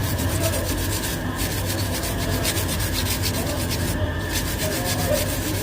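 Rapid, evenly repeated rubbing strokes from a dented roll of aluminium foil being rubbed and worked back into shape by hand.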